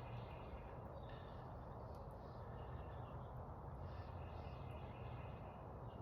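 Quiet outdoor background noise with a low steady hum and a few faint bird calls.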